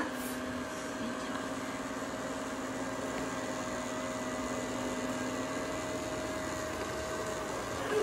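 Budget 'Sweepin Robot' robot vacuum running, its small motor giving a steady hum with two held tones, one low and one higher.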